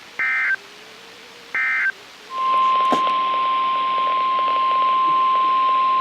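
Two short bursts of Emergency Alert System SAME data tones, the end-of-message code closing a warning. About two seconds in, a steady single-pitched NOAA Weather Radio 1050 Hz warning alarm tone starts over radio hiss, signalling the start of the next warning.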